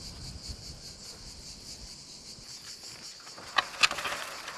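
Insects chirping in a steady, pulsing chorus. About three and a half seconds in, two sharp knocks and a brief rattle as a wooden farm gate is handled.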